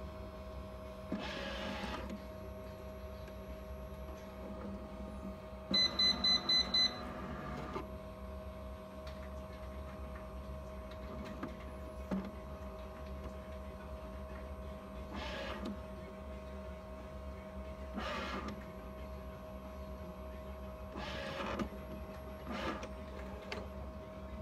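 Agilent 1290 Infinity autosampler mechanism moving in several short whirring bursts over a steady electrical hum, with a run of five quick beeps about six seconds in.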